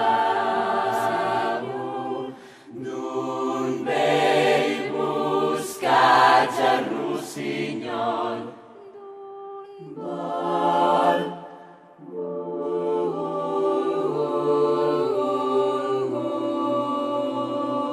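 Music: a choir of voices singing held, layered chords, with a few brief dips in loudness.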